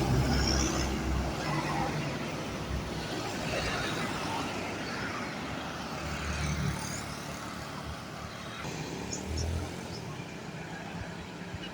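Diesel bus engine running, loudest at first and fading over several seconds as the bus moves off, over the general traffic noise of a bus terminal.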